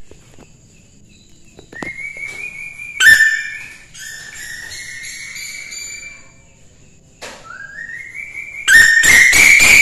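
A female scops owl's lure call: a series of high whistled notes that rise in small steps. Near the end comes a louder call that pulses rapidly.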